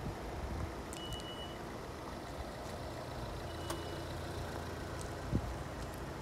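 Steady low outdoor background rumble, with a short high electronic beep sounding twice about two and a half seconds apart, and a dull thump near the end.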